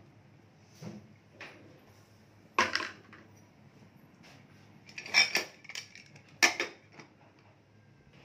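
Metal clanks and clinks from a pressure cooker as its lid is fitted onto the pot and closed. There is one sharp knock about a third of the way in, a cluster of knocks a little past halfway, and another shortly after, with a few fainter taps between.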